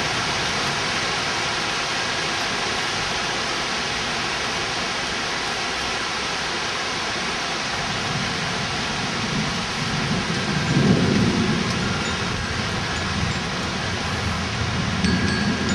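Heavy rain falling steadily in a thunderstorm, with a low rumble of thunder building about eight seconds in, loudest a few seconds later and swelling again near the end.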